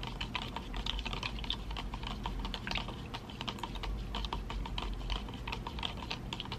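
A clear plastic stirrer clicking and rattling rapidly against the inside of a plastic cup of water, stirring powder in until it dissolves.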